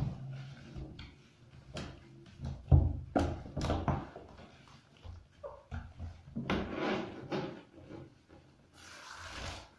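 A soapy wet cat being scrubbed by gloved hands in a bathtub: irregular rubbing, splashing and handling noises, with a few knocks against the tub, loudest a few seconds in. A steady hiss near the end.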